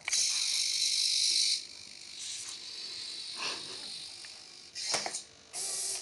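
Hobby servo motors in a homemade robotic arm whirring in short, high-pitched bursts as the gripper lifts a clump of weeds and swings it over onto the robot. The longest burst comes at the start and lasts about a second and a half, followed by four shorter ones.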